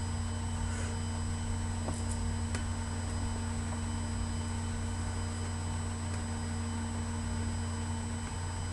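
Steady low hum with hiss and several faint fixed high tones, broken by a few faint clicks about two seconds in.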